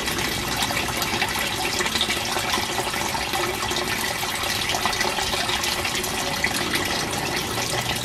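Steady rush and splash of water in an outdoor footer-drain sump basin.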